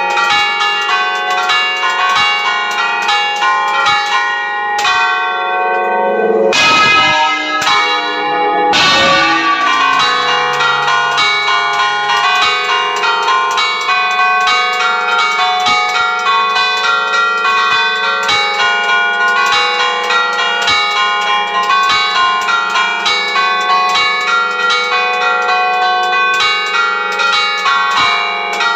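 Church bells in the tower chimed by hand in a fast, continuous pattern of overlapping strokes, each note ringing on. About seven and nine seconds in come two heavier, deeper strokes.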